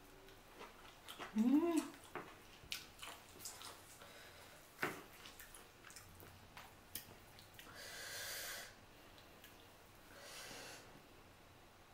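Close-miked eating sounds: boiled chicken being pulled apart by hand and chewed, with scattered clicks and smacks. There is a short hum that rises and falls about a second and a half in, and loud breaths through the nose about eight and ten seconds in.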